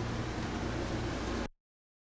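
Steady hiss of background noise with a low hum underneath, cutting off suddenly to dead silence about one and a half seconds in.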